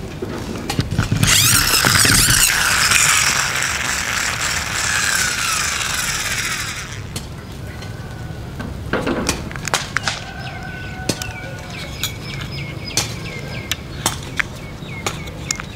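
Plastic toy monster truck's wheels and gears whirring loudly for several seconds as they spin, the pitch falling as they slow down. Then light plastic clicks and taps as the toy is handled.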